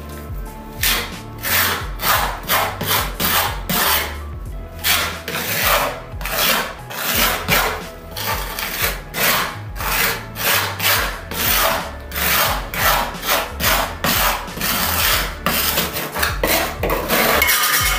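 Small trowel scraping tile adhesive over a foam-core tile-backer panel, filling around a pipe opening. It goes in quick repeated strokes, about two or three a second.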